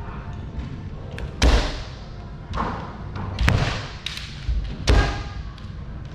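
Kendo exchange: sharp stamps of bare feet on a wooden floor and bamboo shinai strikes, three loud impacts about a second and a half apart with a couple of lighter ones between, each ringing briefly in the large hall.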